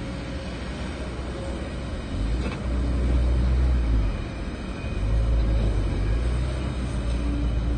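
Diesel engines of a Kobelco SK140 excavator working and a loaded dump truck pulling away up a slope, running with a deep rumble. The rumble swells about two seconds in, drops briefly a little past halfway, then comes back up.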